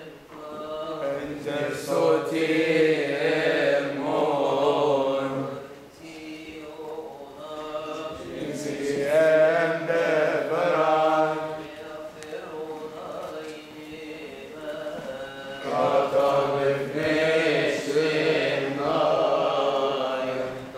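Voices chanting a church hymn together in long, drawn-out held notes, in phrases separated by short breaths.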